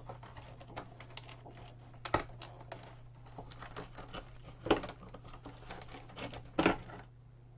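Small metal clicks and taps of hand tools and parts being handled while the main switch, an SCR module, is unfastened from its bus bars, with three louder knocks about two, four and a half, and six and a half seconds in, over a faint steady hum.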